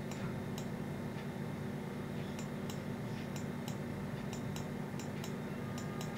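A steady low hum with faint, irregularly spaced ticks and clicks.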